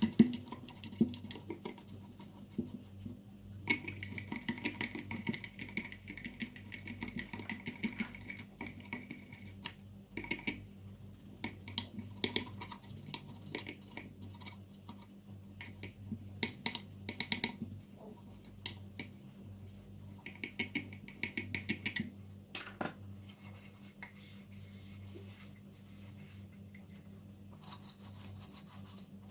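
Scratching and brushing strokes with small clicks and knocks, as of hands and a brush or tool working on plastic parts, over a faint steady hum.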